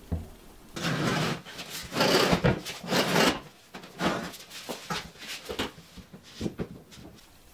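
Irregular scraping and rubbing on wood, with a few short knocks, as kitchen cabinet parts are handled and fitted.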